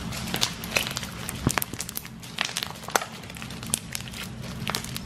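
Homemade slime being kneaded, pressed and squeezed by hand, giving irregular sticky pops and crackles several times a second.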